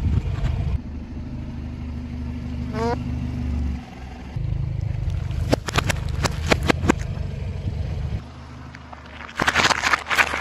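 Car engine running at low speed with a steady low hum as the tyre rolls over objects, with a cluster of sharp cracks from about five and a half to seven seconds in as red plastic cups are crushed under the tyre. A dense burst of crackling comes near the end.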